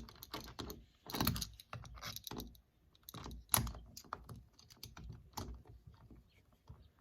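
Irregular small metal clicks and rattles as the parts of a keypad door lockset and its screws are handled and fitted into the door.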